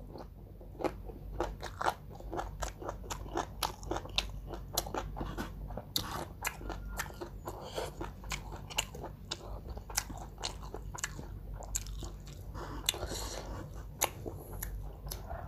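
Close-up chewing of crunchy food: a rapid string of sharp crunches, several a second.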